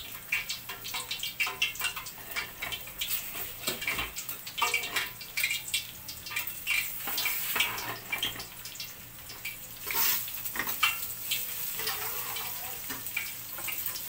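Cooking oil heating in a wok, crackling and popping densely as moisture in it boils off. The crackles thin out and quieten after about eleven seconds, the sign that the oil is nearly hot enough for frying.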